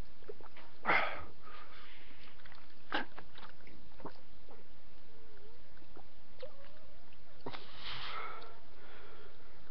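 A person sniffing sharply through the nose, his nose running from the heat of a habanero pepper: one loud sniff about a second in, a shorter one near three seconds, and a longer one near the end.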